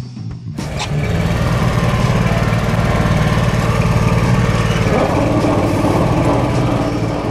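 A small engine running steadily and loudly, starting about half a second in, with a change in its sound about five seconds in.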